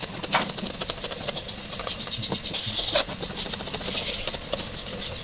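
Steel cleaver shredding cabbage on a wooden chopping board: a quick, steady run of chops.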